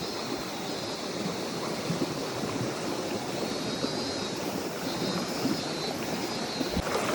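Mountain stream flowing, a steady rushing of water with no pauses.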